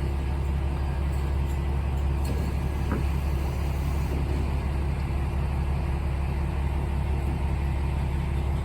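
Diesel railcar engine idling: a steady low rumble with a faint steady hum over it.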